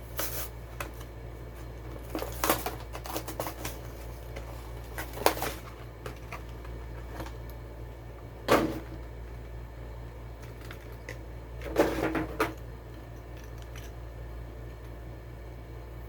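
Die-cast toy car packaging, cardboard and plastic, being handled and opened: a few separate bursts of clicking and rustling, the loudest about eight and a half seconds in and around twelve seconds. A steady low hum runs underneath.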